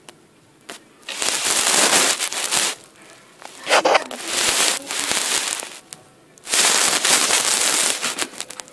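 Loud crackling rustle of close handling noise, as hands and fabric rub near the camera's microphone, in three stretches of about two seconds each.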